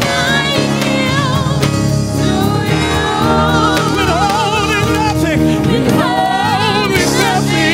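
Gospel worship music: a singer's voice wavering with vibrato in wordless runs over a band's sustained chords.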